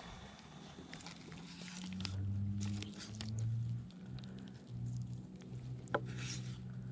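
Crinkling and rustling of a plastic zip-top bag of cut chicken bait being handled, with a sharp click about six seconds in. A low wavering hum comes in about two seconds in and is the loudest sound for a second or two.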